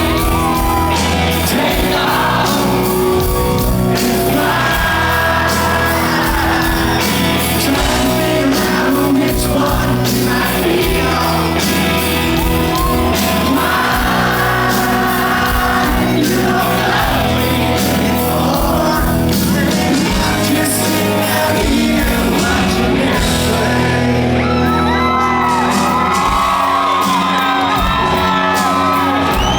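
A country band plays live in a large hall while a male lead singer sings, recorded from the audience, with shouts and whoops from the crowd.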